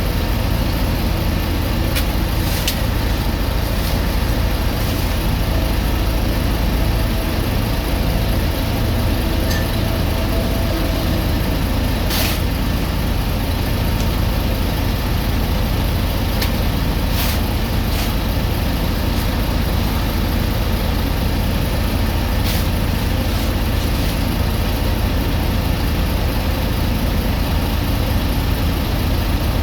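Heavy diesel road-paving machinery running steadily, with a few short sharp clicks or knocks over it.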